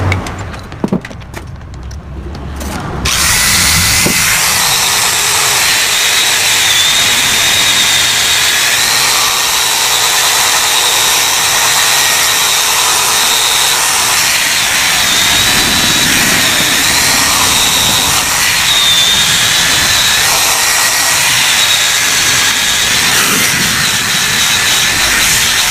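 A few light knocks, then about three seconds in a handheld electric power tool starts and runs steadily at high speed on the metal of a Yamaha RX-King exhaust muffler as it is opened up. Its high whine wavers slightly in pitch as the load changes.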